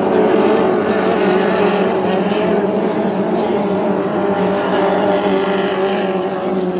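Racing hydroplane engines running at full speed across the water, a loud, steady, multi-toned engine drone.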